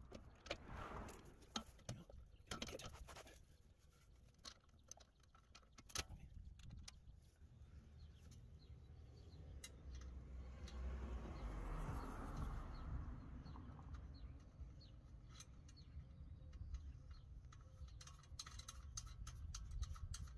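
Faint, scattered clicks and light knocks as an aftermarket rear sway bar and its mounting bolt are worked into place by hand against the rear suspension.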